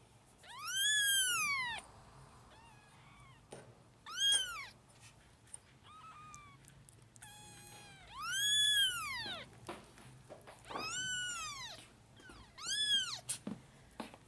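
Young kittens mewing: five loud, high-pitched mews, each rising then falling in pitch, with a few fainter, shorter mews in between.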